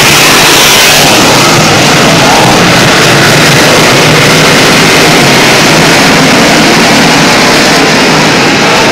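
A field of dirt modified race cars' V8 engines running hard as the pack circles the track. The sound is loud and steady.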